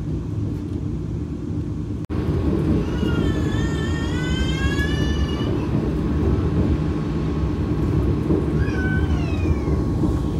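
Steady low rumble inside a Vande Bharat Express coach. Over it come two high cries with a wavering pitch: a long rising one about three seconds in, and a shorter falling one near nine seconds.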